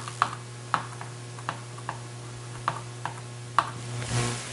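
Marker pen tapping and stroking on a whiteboard as it writes: a string of short, irregular ticks over a steady low hum.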